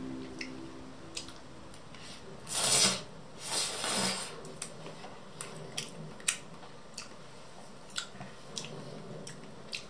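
Background music fading out, then two brief rustling swishes a few seconds in, followed by scattered light clicks.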